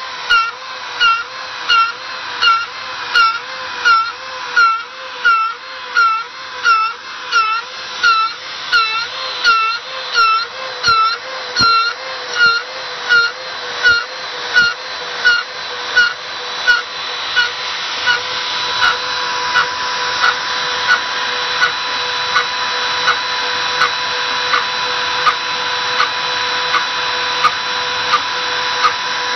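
Makita RT0700C trim router spinning a three-flute 6 mm end mill at about 30,000 rpm, dry trochoidal milling of 5 mm low-carbon steel on a DIY CNC mill. A high cutting whine dips in pitch and swells in loudness about one and a half times a second as each looping pass bites into the steel. After about eighteen seconds the whine steadies and the swells become smaller and quicker.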